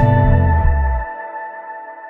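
Background music: a full track whose bass and beat stop about a second in, leaving held ambient synth tones fading out.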